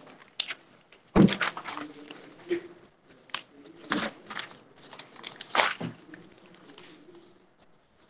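Handling noise close to the microphone: a series of knocks and rustles as a sheet of paper is moved about and held up to the camera. The loudest knock comes about a second in.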